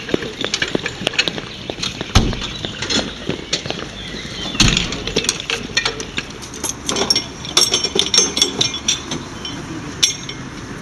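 Metal fire-hose couplings and fittings clinking and knocking as rolled hoses and equipment are handled at a fire engine, with two heavier thumps about two seconds and four and a half seconds in.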